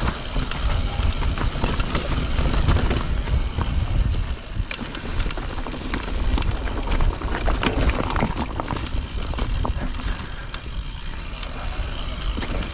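Mountain bike rolling down a rocky trail: tyres crunching and rattling over loose stones, with frequent clicks and knocks from the bike, over a steady low rumble.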